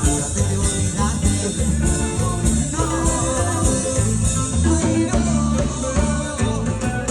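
Latin dance music with a heavy, steady bass beat, guitar and singing.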